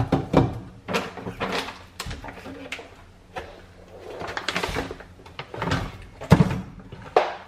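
Aluminium rice-cooker pot and its glass lid clinking and knocking as they are handled and set down on a kitchen counter: a string of separate knocks, the loudest a dull thud about six seconds in.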